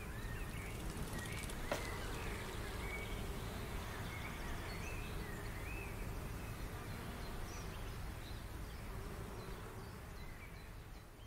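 Outdoor garden ambience: small birds chirping repeatedly over a steady low rumble, with a single sharp click about two seconds in.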